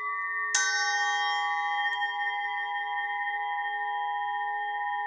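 A bell struck once about half a second in, its ring of several high pitches sounding over the still-ringing tone of an earlier strike and sustaining through, slowly dying away.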